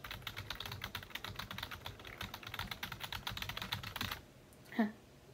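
Rapid typing on a computer keyboard, a fast run of key clicks that stops about four seconds in. Shortly after, a brief sound falling in pitch.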